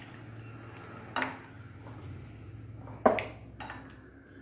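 A spatula clinking against a non-stick frying pan and a plate as a cooked pancake is lifted out: a sharp clink about a second in, and a louder one near three seconds followed by a lighter one, over a low steady hum.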